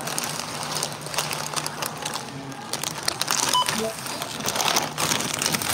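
A plastic snack bag crinkling and crackling as it is handled and turned over, with a brief faint beep about three and a half seconds in.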